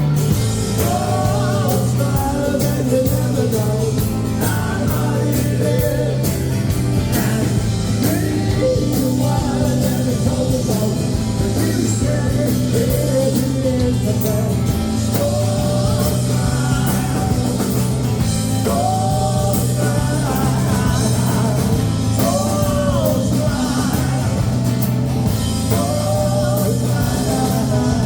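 A rock band playing live, with drums, bass and guitar under a lead melody line that bends and slides in pitch.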